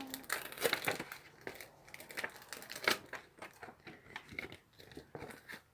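Packaging crinkling and rustling as it is handled, in irregular crackles with the sharpest about a second in and again about three seconds in.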